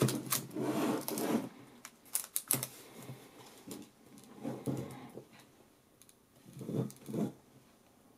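Plastic toy night-vision goggles handled in the hands: scattered light clicks and rubbing of plastic, busiest in the first few seconds and sparse toward the end.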